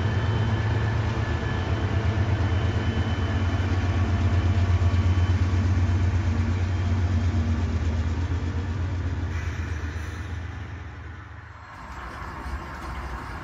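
Diesel locomotive sound from HO scale model BNSF locomotives, a steady low rumble as the locomotives pull their train past, fading from about eight seconds in. Near the end it gives way abruptly to a thinner, quieter running sound.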